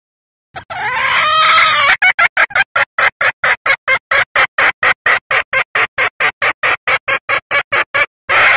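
Red junglefowl hen calling: a continuous call with wavering pitch lasting about a second and a half, then a fast, even run of short clipped notes at about four a second, ending on one more short burst. It is a hen call used as a lure to bring male junglefowl in and set them crowing.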